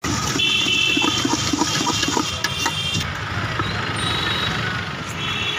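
Busy street background with vehicle engines running steadily. A quick run of light knocks, about four a second, sounds in the first two seconds.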